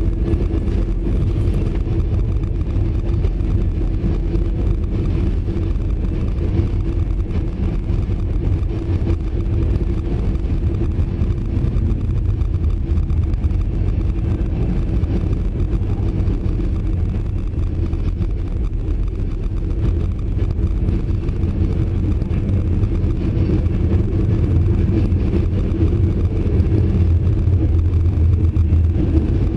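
Diesel locomotive engine running, a steady low rumble with a faint hum in it, growing slightly louder near the end.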